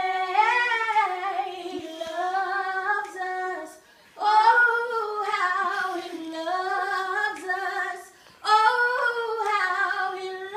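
A woman singing a worship song unaccompanied, in three long sustained phrases with short breaths between them.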